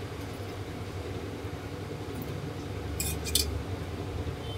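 Oil heating in a pressure cooker on the stove: a steady low burner hum, with two quick clinks of kitchen utensils about three seconds in.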